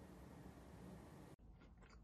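Near silence: faint steady hiss, changing about a second and a half in to a quieter background with a few faint ticks.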